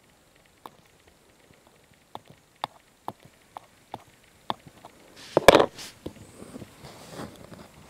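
Light metal clicks of tweezers tapping and pressing on a Vero stripboard, about seven separate ticks over the first few seconds. About five and a half seconds in comes a louder, brief rustling clatter as the part is lifted and handled.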